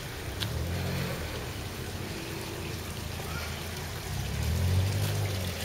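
Low engine hum of a vehicle, swelling about four and a half seconds in and easing off near the end, over steady outdoor background hiss.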